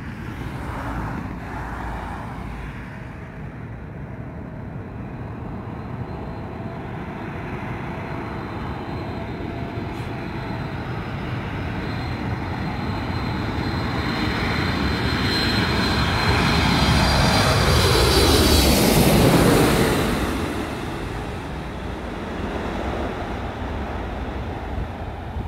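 Four-engine Boeing 747 jet engines on landing approach, passing low overhead. The noise builds steadily to a peak about 18 to 20 seconds in, with a high whine and a fall in pitch as it goes over, then fades.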